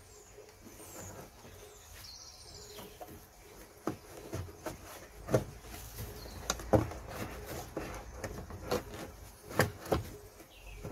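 Hard plastic knocks and clicks as a new pleated air filter is pushed into a car's plastic airbox and the airbox cover is worked into place. The knocks come irregularly, thickening from about four seconds in.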